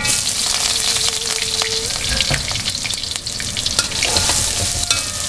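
Sliced red onions, curry leaves and spices hitting hot cooking oil in a metal wok, bursting at once into a loud sizzle that keeps going as they sauté. A metal spatula stirs them, scraping and clicking against the wok.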